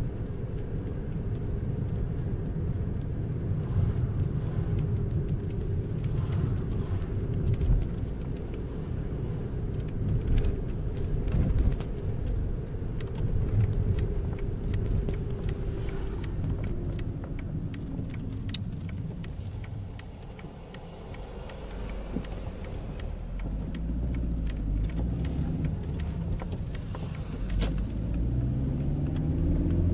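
Cabin noise inside a VW Polo 6N2 on the move: a steady engine and tyre rumble. It eases off and goes quieter for a couple of seconds past the middle, then the engine note rises near the end as the car pulls away again.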